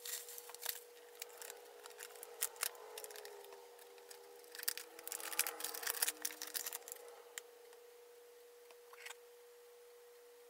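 Faint crinkling of bubble wrap and small clicks of hard-drive parts being handled, with a denser burst of crinkling about halfway through. A thin steady tone sounds underneath.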